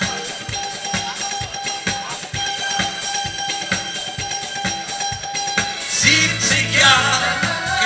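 Instrumental break of an upbeat German schlager song: a steady drum beat over a held keyboard-like tone. A singing voice and a bass line come in about six seconds in.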